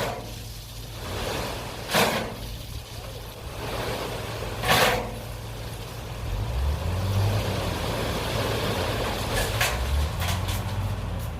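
Excavator diesel engine running steadily and rising in pitch twice as it takes hydraulic load. Several short, sharp noises come over it, a cluster near the end.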